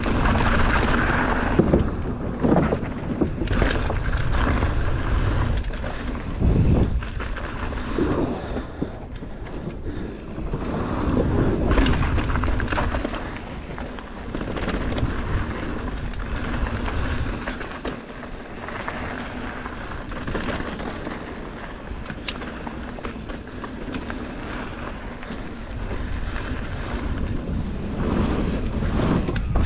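Mountain bike riding down a bike-park trail: tyres rumbling on the ground and the bike rattling, with frequent short knocks over bumps and the noise swelling and easing as the speed changes.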